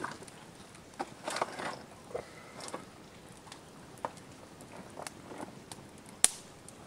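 Fatwood fire crackling, with irregular sharp pops, a small flurry of them early on and one loud snap near the end.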